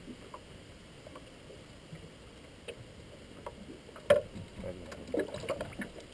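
Water lapping at the hull of a small aluminium boat. A sharp knock comes about four seconds in, followed by a flurry of smaller knocks and splashes.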